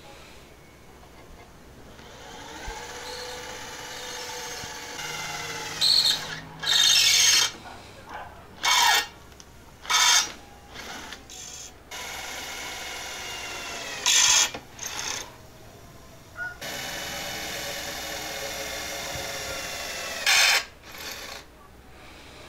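Electric drill running in several long runs, its pitch rising as it spins up, with about six short, loud bursts between the runs, while driving temporary screws into a steel canopy.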